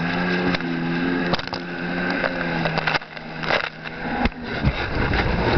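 Jet ski engine running at a steady pitch, which drops away about three seconds in, leaving rough noise with sharp knocks.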